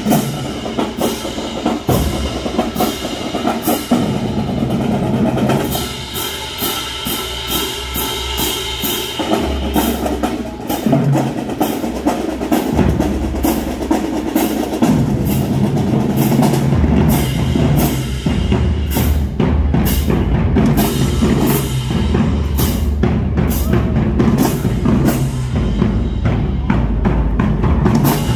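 High school marching drumline playing a cadence: snare drums, bass drums sounding low notes that change in steps, and crash cymbals, in a steady rhythm. It grows louder in the second half as the line comes close.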